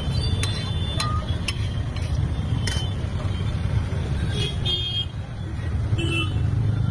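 Steady low rumble of road traffic with brief horn toots. In the first few seconds there are several sharp metal clinks of a steel spatula on an iron tawa.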